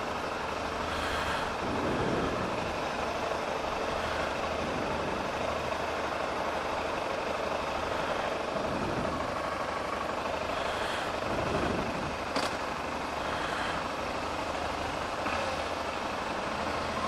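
Motorcycle engine running steadily while the bike rolls slowly through city traffic.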